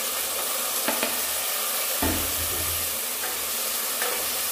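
Chopped tomatoes sizzling in hot oil with fried onion and garlic in a pressure cooker as a wooden spatula stirs them, with sharp knocks against the pot about one and two seconds in.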